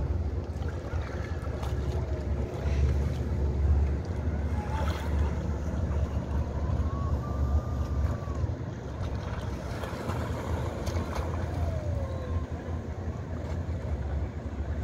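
Wind buffeting the microphone as a steady low rumble, over open water lapping around a canoe.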